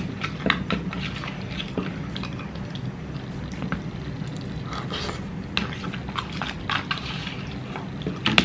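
Metal spoon scraping and clicking against a plastic takeaway bowl while scooping up wet chole, with wet chewing sounds between scoops. Short irregular clicks throughout, the sharpest one near the end.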